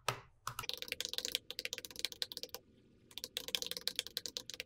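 Typing on a MacBook laptop keyboard: quick key clicks in two runs, with a short pause about halfway.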